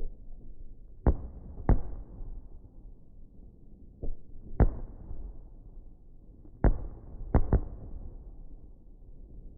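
Firework explosions: a series of about seven sharp bangs at uneven intervals, each trailing off in a low rumble, with two bangs close together in the first two seconds and another close pair about three quarters of the way through.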